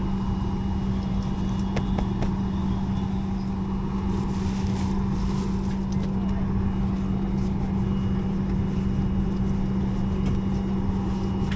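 Boeing 737 MAX cabin noise: a steady hum and rush with a constant low drone, with a few faint clicks about two seconds in.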